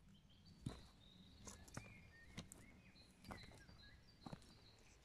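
Footsteps of rubber boots through wet, sticky mud, a step about every second.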